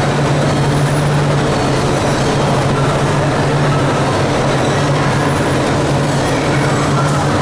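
Steady running noise of an onion ring processing line: wire-mesh conveyor belts and their electric gear motors running, with a constant low hum under an even clatter.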